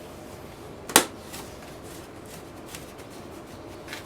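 Small handling clicks: one sharp click about a second in, then a few faint ticks, as a new spin-on oil filter and oil bottle are handled during an oil change.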